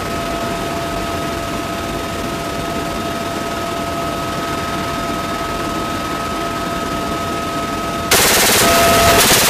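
Steady helicopter cabin noise with a constant two-note whine; about eight seconds in, the door-mounted six-barrel minigun opens fire in a loud, continuous burst that drowns the whine.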